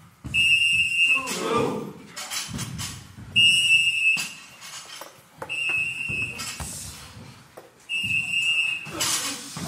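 A high, whistle-like tone, each well under a second long, repeating every two to three seconds, with scattered knocks and voices in a weight room between the tones.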